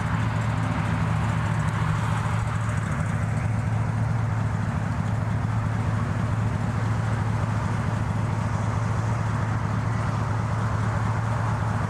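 Steady low engine drone under a constant hiss of road noise.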